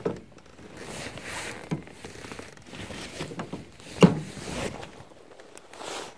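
Irregular rustling and splashing as a hooked skygazer is drawn in and lifted from the water, with a few sharp clicks of handling, the loudest about four seconds in.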